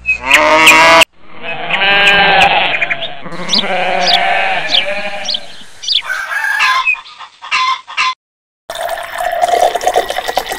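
Farmyard animal calls, bleating and clucking, one after another with short gaps. About nine seconds in, water pouring into a small metal bowl.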